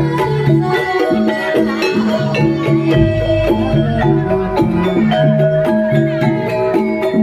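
Javanese gamelan music for a kuda kepang trance dance: struck bronze metallophones ring out a busy, repeating melody.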